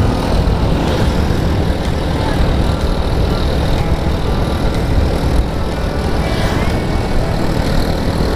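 Motorcycle riding along a road: steady, loud wind and road rumble on the camera's microphone, with the motorcycle's engine running underneath.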